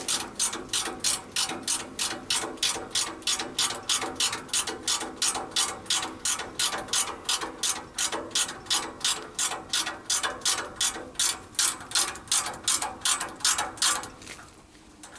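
Ratchet spanner clicking steadily, about four clicks a second, as a refrigeration service valve stem is wound in. The clicking stops about a second before the end.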